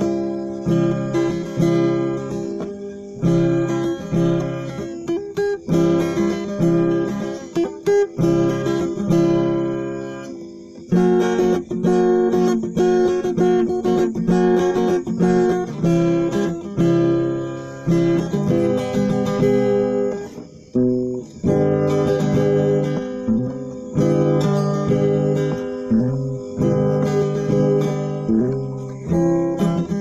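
Background music led by a plucked and strummed acoustic guitar, a run of notes that are each struck and then fade, with a brief dip twice.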